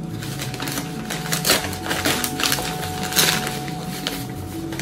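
Newspaper wrapping crinkling and rustling as it is pulled open by hand, an uneven run of crackles with a couple of louder crunches.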